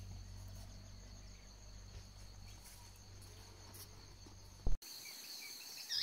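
Outdoor ambience of insects trilling steadily over a low steady hum, broken near the end by a single sharp pop and a split-second dropout where the sound track cuts. After the cut the hum is gone and the insects carry on with a few short chirps.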